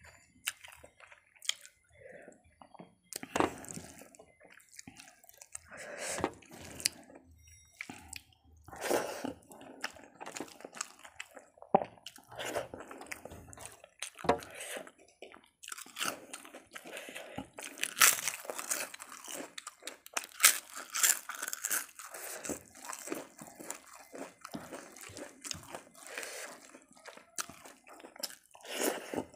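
Close-miked eating sounds: chewing with crunchy bites, and rice and dal being mixed by hand on a metal plate, as irregular clicks and crackles that come thickest in the middle of the stretch.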